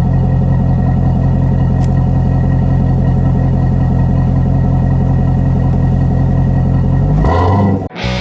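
A C7 Corvette Z51's 6.2-litre V8, breathing through an aftermarket Flowmaster performance exhaust, idling steadily in track mode. Near the end the sound shifts briefly and then cuts off.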